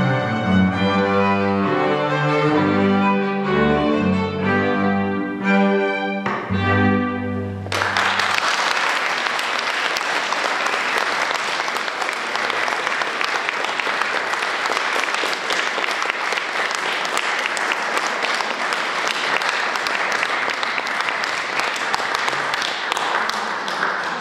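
Double bass and string quartet playing the closing bars of a movement, ending with a sustained low note about eight seconds in. Audience applause follows for the rest, steady and then dying away at the very end.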